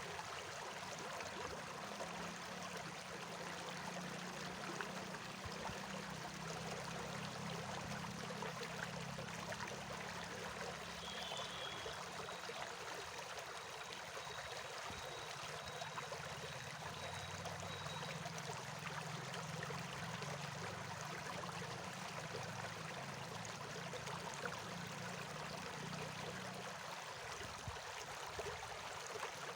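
A stream running steadily. Under it runs a low, steady hum that fades out near the end.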